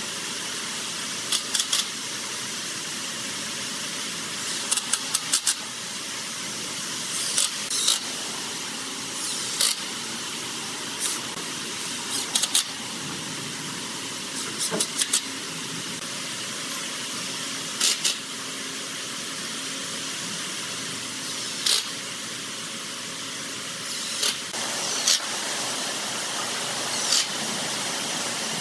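Makita 18V cordless impact driver driving screws through pine battens into a pallet-wood tabletop, in short bursts of rapid clicking every two or three seconds. A steady hiss runs underneath.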